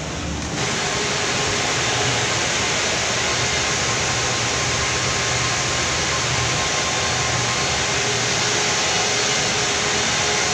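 Koppel air handling units running: a steady rush of blower air with a low machine hum. The rush steps up about half a second in.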